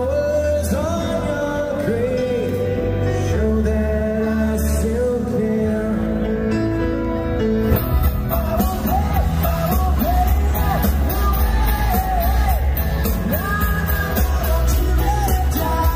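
Live rock band playing with a singer over heavy bass and drums, as heard from within an arena crowd, with occasional yells from the audience. The music changes abruptly about eight seconds in, as the recording cuts to another part of the show.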